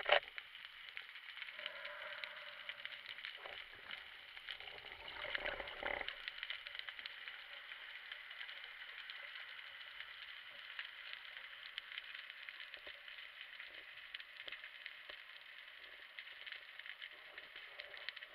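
Underwater ambience over a rocky seabed picked up by a camera in a waterproof housing: a steady crackle of many tiny clicks. A few louder low knocks and rustles come about four to six seconds in.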